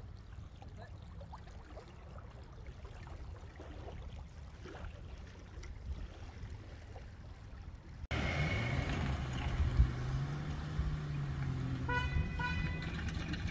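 Wind rumbling on the microphone; about eight seconds in, a car engine running steadily, rising briefly, then two short car-horn toots near the end.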